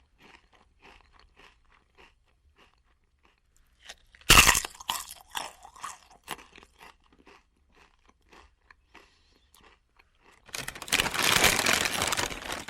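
Potato chips being eaten: faint crunchy chewing, then a loud bite into a chip about four seconds in, followed by chewing crunches that fade. Near the end comes a dense, loud crackling that lasts a couple of seconds.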